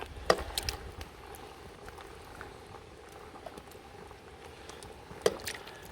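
Chicken sizzling and bubbling in a big pan over a campfire, with a few sharp metal clinks against the pan, the clearest about a third of a second in and near the end.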